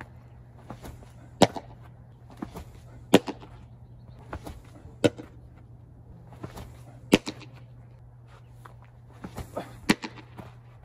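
Baseball pitches popping into the catcher's mitt: five sharp smacks about two seconds apart, with smaller ticks around them, over a steady low hum.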